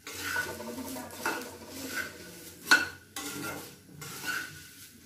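Wooden spatula stirring puffed rice in a frying pan, scraping the pan and rustling the grains as they roast until crisp, in repeated strokes. One sharp knock of the spatula against the pan a little past the middle is the loudest sound.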